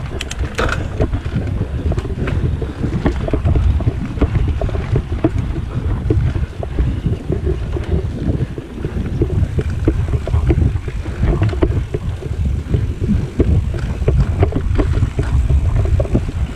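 Mountain bike rolling down a dirt singletrack, heard from a rider-mounted microphone: wind buffeting the microphone over a steady low rumble of tyres and frame, with many small rattles and clicks from the bike over roots and bumps.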